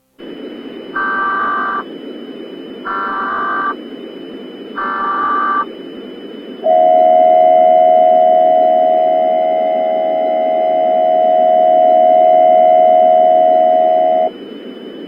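Emergency Alert System header: three short bursts of data tones about two seconds apart, then a steady two-tone attention signal held for about seven and a half seconds, swelling and fading slightly, over a constant hiss.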